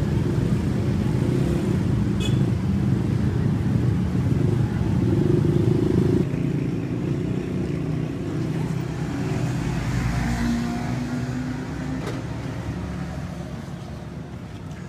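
Road traffic: motor vehicles passing, a steady low rumble, loudest in the first six seconds and fading toward the end.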